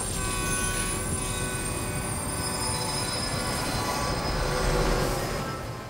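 Locomotive and train passing close by: a heavy rumble with steady high-pitched squealing tones from the wheels, growing louder about four to five seconds in, then fading away at the end.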